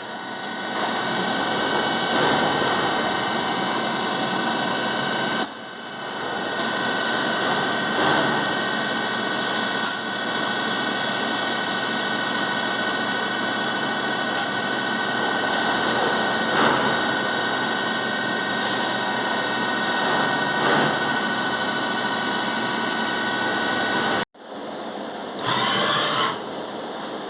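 A Doosan DNM400 vertical machining centre running, a steady mechanical noise with a high whine. It dips briefly about five seconds in and cuts off abruptly near the end, where a quieter sound follows.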